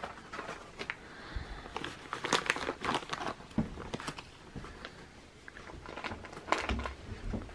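A soft plastic baby-wipes packet and nylon gear being handled: irregular crinkling and rustling with scattered crackles.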